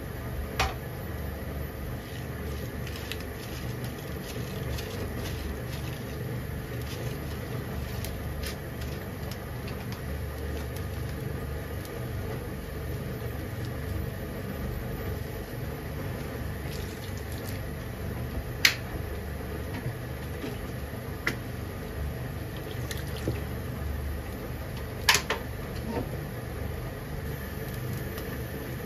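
Water simmering with chicken pieces in a frying pan: a steady bubbling hiss. A few sharp clicks stand out, about a second in, about two-thirds through and again a little later.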